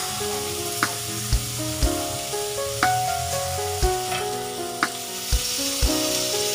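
Food sizzling in a frying pan under background music with held notes and a steady beat.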